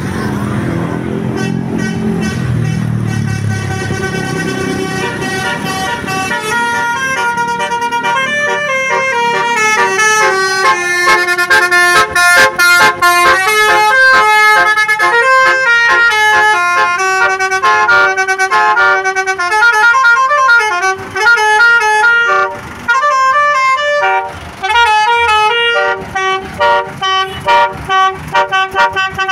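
Basuri 'telolet' multi-tone bus horn playing a stepped melody of several notes, loud, over a low engine rumble in the first few seconds. Near the end it breaks into a quick run of short toots.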